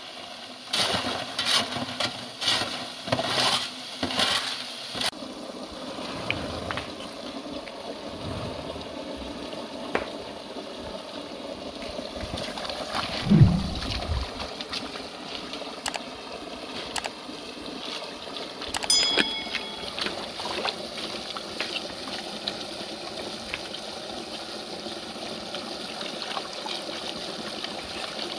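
Water splashing and running. A run of loud irregular splashes in the first few seconds gives way to a steady wash of flowing water, with a brief low falling sound about halfway through.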